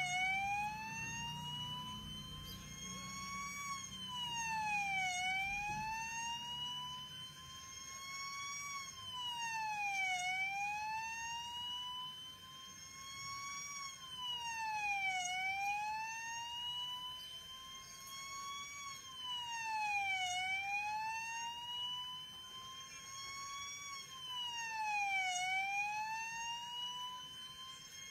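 Siren wailing in a steady cycle: its pitch climbs slowly for about three and a half seconds, then drops back more quickly, repeating about every five seconds.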